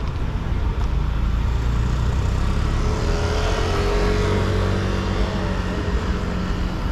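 City street traffic: a steady low rumble of engines, with a vehicle passing close from about three seconds in, its engine note shifting in pitch as it goes by.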